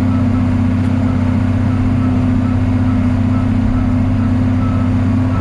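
John Deere 4430 tractor's diesel engine running steadily at working speed while pulling a square baler, a constant low drone with no change in pitch.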